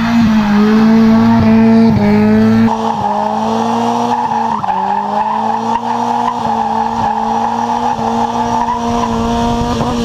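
Mazda Miata NA's four-cylinder engine held steadily at high revs, with only brief dips, while the rear tyres spin and squeal in a smoky burnout. Near the end the revs start to fall.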